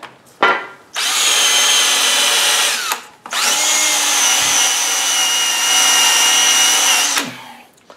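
Die grinder spinning a wire cup brush against a cast-iron drill press table, scrubbing off torch-heated paint drips. It runs in two spells, about two seconds from a second in, then after a brief stop about four seconds more, a steady high whine over harsh scraping.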